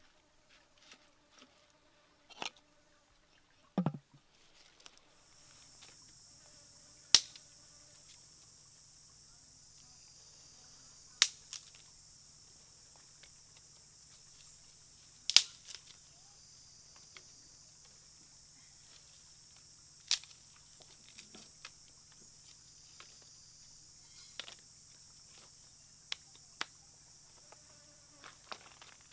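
Small stick fire crackling, with a few sharp, loud pops spaced several seconds apart. A steady high-pitched insect drone starts about five seconds in. A few soft knocks and a thump come in the first four seconds.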